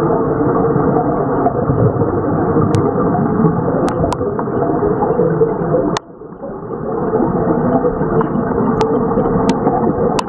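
Underwater rushing rumble of gas bubbling out of a seafloor vent, dense and steady. It drops out suddenly about six seconds in and builds back up over the next second or two. A few sharp clicks sound over it.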